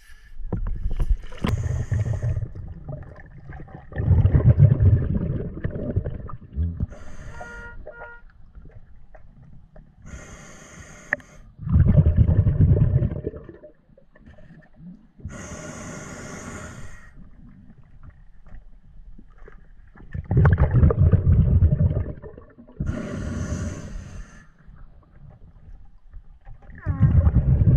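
Scuba diver breathing through a regulator underwater. A hiss on each inhale alternates with a loud bubbling rumble on each exhale, about four slow breaths.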